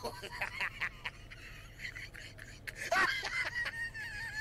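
Hysterical, high-pitched laughter with gasps, breaking about three seconds in into a long, squealing wheeze.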